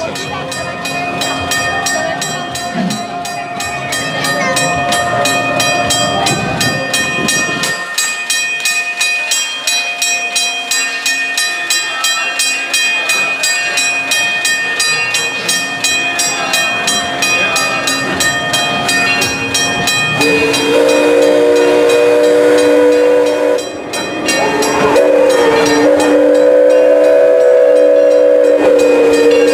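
Steam locomotive running with regular exhaust chuffs. About twenty seconds in its whistle starts a long blast of several tones at once, breaks off briefly, then blows again.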